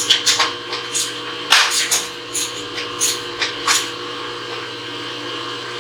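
Irregular metal clicks and knocks from hand work on a CNC knee mill, heard over a steady machine hum; the knocks stop about four seconds in, leaving only the hum.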